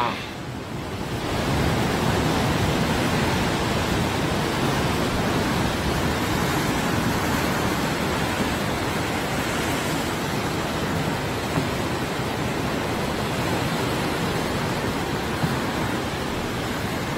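Steady rushing noise of wind and sea surf, even and unbroken, with no distinct calls, splashes or other events.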